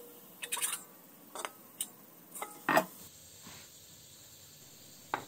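A spatula scraping and tapping against a wok while toasted garlic is scooped out: a few scattered light clicks and scrapes, the loudest about two and a half seconds in.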